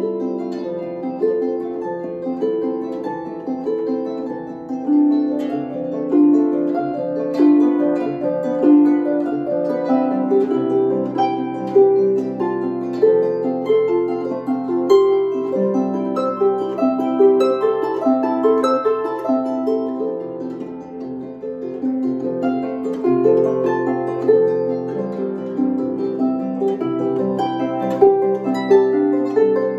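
Solo lever harp playing a study in a steady stream of plucked notes, with repeating broken-chord figures in the Alberti style over lower notes.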